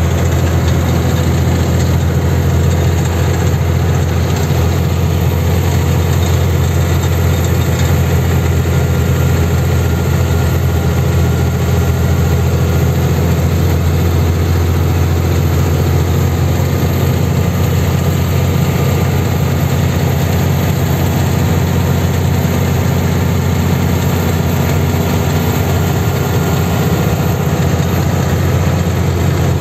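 Truck's diesel engine running steadily while cruising, a low, even drone heard from inside the cab.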